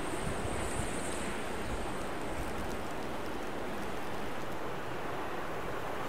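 Steady rushing wind of a snowstorm, an even hiss with no distinct events.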